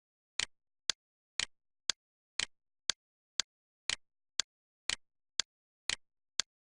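Sharp clicks at an even two per second, alternating a longer, slightly ringing click with a shorter one.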